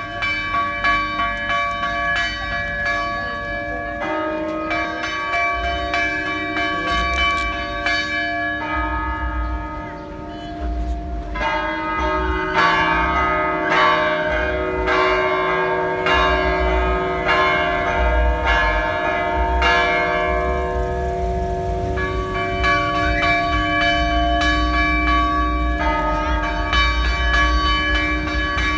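Church bells pealing: several bells of different pitches struck over and over so that their ringing overlaps, with the mix of notes shifting every few seconds.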